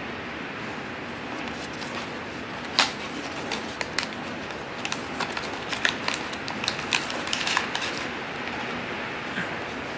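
Paper blind-box packaging or card handled close to the microphone, crinkling and clicking: one sharp click about three seconds in, then a run of small crackles and ticks until about eight seconds, over a steady hiss.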